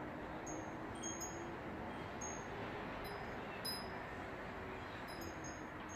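Homemade wind chime tinkling: scattered light, high, bright strikes at irregular intervals, each ringing briefly, over a steady background hiss.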